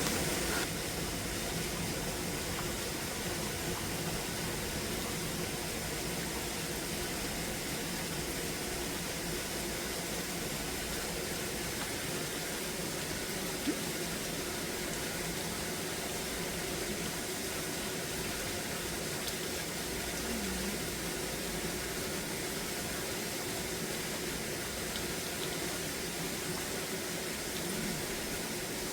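Steady rain falling, an even hiss throughout, with one short sharp tick about halfway through.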